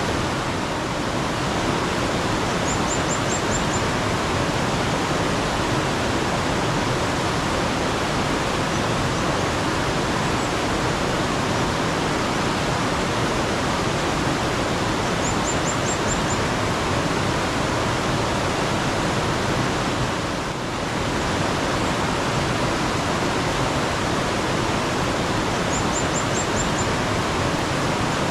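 Steady rush of flowing mountain stream water. Three times, about twelve seconds apart, a bird gives a brief call of about five quick, very high notes.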